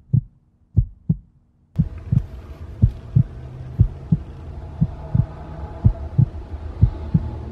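Heartbeat sound effect: paired low thumps about once a second. A low steady hum comes in under them about two seconds in.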